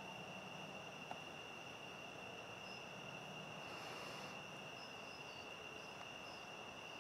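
Crickets trilling faintly and steadily on one constant high note, with a few short higher chirps scattered through. A brief soft hiss swells about four seconds in.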